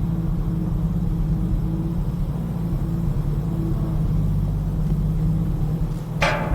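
Engine of a 1960 Soviet truck crane running steadily with a low, even rumble. About six seconds in there is one brief sharp burst of noise, such as a hiss or clank.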